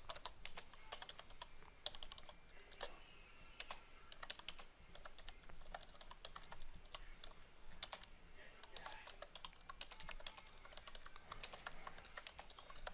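Computer keyboard typing: quiet, irregular keystroke clicks, several a second, with short pauses between runs.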